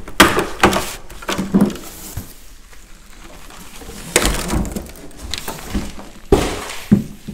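Handling noise from a coil of rubbery pressure washer hose being lifted and moved about: scattered knocks and short rustles, with quieter stretches between.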